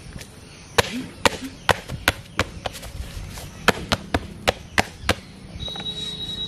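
Footsteps of leather loafers on a dirt path covered in dry leaves: about a dozen sharp, evenly paced steps, roughly three a second, that stop about a second before the end.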